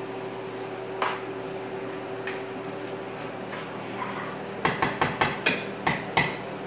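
A cooking utensil knocking against a stainless-steel skillet while pasta is tossed in it: one knock about a second in, then a quick run of about seven sharp taps near the end, over a steady hum.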